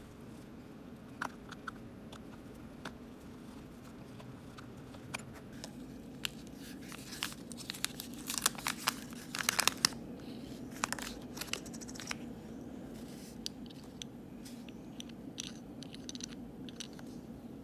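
Small scattered clicks, taps and crinkles from handling a gold watch case, polishing cloth and new crystal on a bench mat, busiest in a cluster midway, over a steady low hum.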